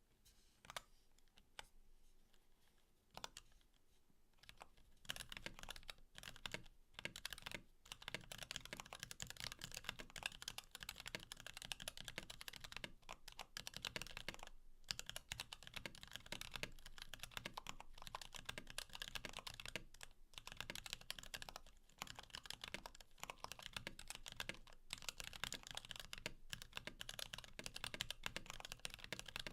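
Typing on a Klippe mechanical keyboard with lubed Kailh Box Black switches and blank POM Cherry-profile keycaps on a carbon fiber plate, its case damped with a Sorbothane sheet. A few scattered key presses come first, then steady fast typing from about five seconds in, broken by brief pauses.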